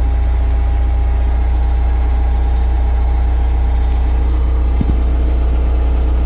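Bobcat 743 skid steer's engine running steadily at a constant speed, with a single short click about five seconds in.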